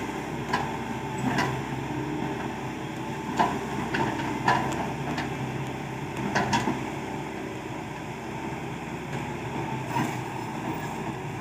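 Excavator's diesel engine running steadily, with scattered sharp knocks and clanks, several close together in the first half and fewer later.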